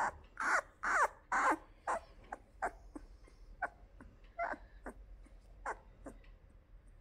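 Labrador puppy squeaking in a run of short, high calls: three loud ones with bending pitch in the first second and a half, then fainter squeaks on and off.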